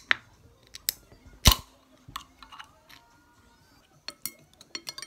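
Metal chopsticks and a spoon clicking and scraping against a bowl in a series of sharp clicks, with one heavier knock about one and a half seconds in. Soft background music plays underneath.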